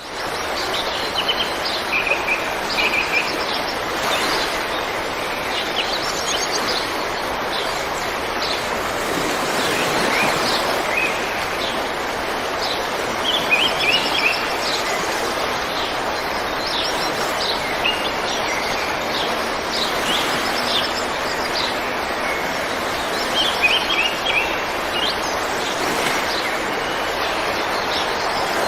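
River water rushing steadily, with small birds chirping in short, repeated phrases over it.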